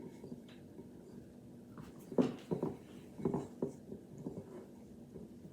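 Hands squeezing and pulling apart a foam squishy toy that already has a hole in it: a run of irregular soft squishing and rustling handling noises in the middle, with the inside breaking into little crushed pieces.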